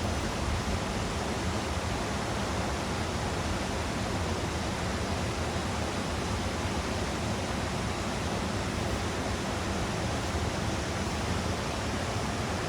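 Steady rush of a mountain stream's flowing water, an even, unbroken noise.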